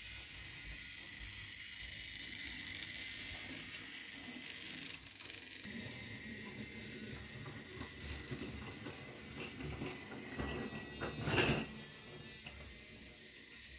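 Toy train running on its track: a clicking, rattling mechanical sound that builds from about six seconds in and is loudest in a short clatter just past eleven seconds.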